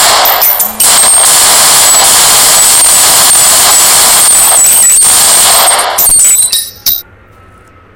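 Thompson M1921 .45 submachine gun firing on full automatic: a short burst, a brief break, then one long burst of about five seconds, with a few short bursts after it. A single sharp click comes about seven seconds in, and then the firing stops.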